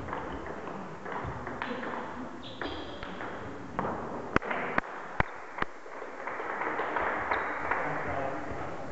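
Table tennis ball bouncing with four sharp clicks in an even rhythm, about two and a half a second, over the murmur of voices in a sports hall.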